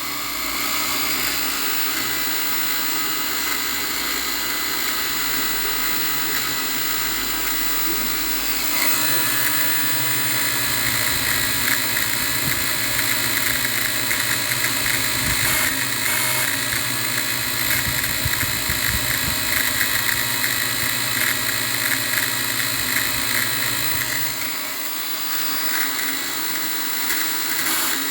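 Drone motors and propellers running with a steady, high multi-toned whine that the owner calls a strange noise. It gets louder about nine seconds in and eases off a few seconds before the end.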